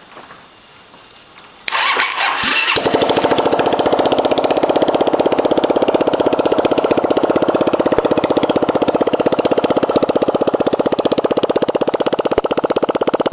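Just-installed replacement Honda 250cc engine turned over on the starter for about a second, then catching and settling into a steady, even idle with a fast firing rhythm.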